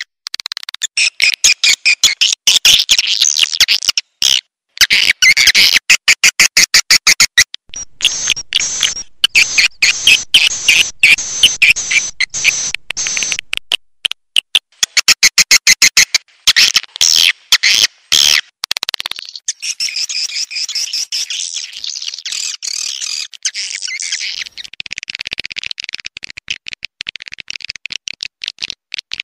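Swiftlet lure-call recording: dense, rapid twittering chirps and clicks of edible-nest swiftlets, loud and high-pitched, cutting off abruptly and restarting every few seconds, then running more evenly near the end.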